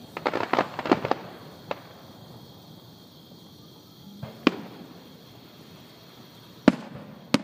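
Aerial fireworks shells bursting overhead: a rapid cluster of bangs and crackles in the first second or so, then single booms spaced a couple of seconds apart.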